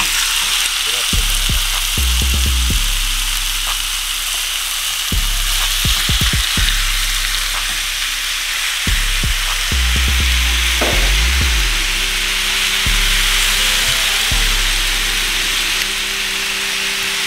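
Seasoned chicken thigh strips sizzling as they hit the hot oil in a skillet and fry, with a spatula knocking and scraping against the pan as the pieces are spread and stirred.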